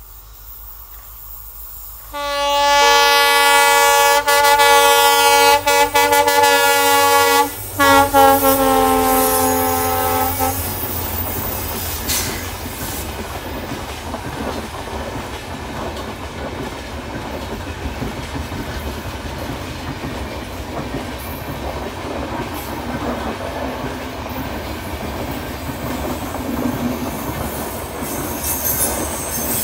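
An Indian Railways diesel locomotive horn sounds one long blast, a chord of several notes held about eight seconds with a brief break partway through. The train then runs past with a steady rumble and clatter of wheels on the rails.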